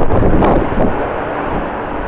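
Strong gusty wind buffeting the microphone, heaviest for the first second and then easing, over the steady sound of a jet airliner's engines.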